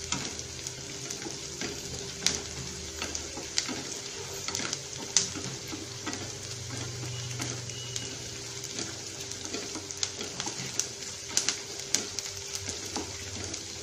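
Sliced onions sizzling in hot oil in a nonstick pan, stirred with a wooden spatula that scrapes and taps against the pan every so often. The onions are being sautéed until they turn reddish-brown.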